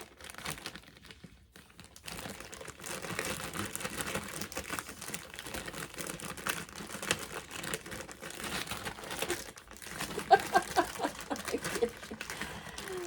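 A bag crinkling and rustling steadily as a dog rummages in it, with a brief pitched sound about ten seconds in.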